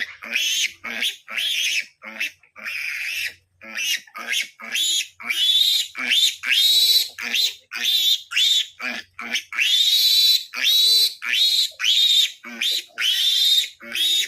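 Three-day-old piglet squealing over and over in shrill, rapid cries while it is held and castrated: distress squeals.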